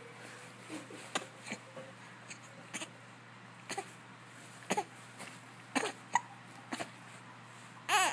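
A run of short, sudden hiccups roughly once a second, several with a brief voiced squeak, the loudest near the end.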